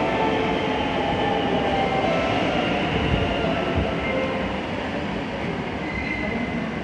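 Ainokaze Toyama Railway 521 series electric train pulling along a station platform past the listener, a steady rumble of wheels and running gear with a falling whine as it slows.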